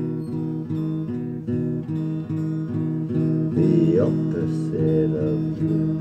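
Acoustic guitar strummed in a steady rhythm of repeated chords, an instrumental gap between sung lines of a song.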